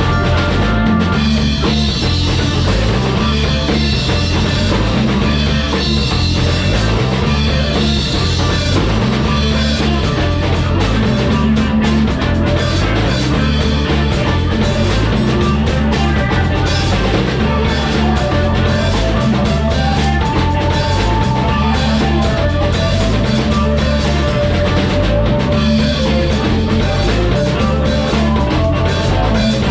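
A live rock band playing a song, with a steady repeating bass line and drums.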